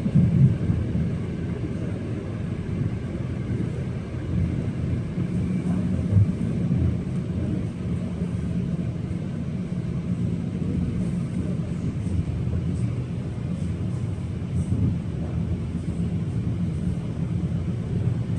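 Passenger train running along the track, heard from inside the carriage: a steady low running noise with a few brief knocks.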